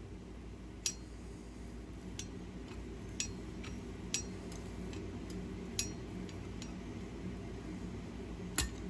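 A handful of sharp, light metallic clinks of steel stock and tools being handled, scattered over several seconds, over a steady low hum.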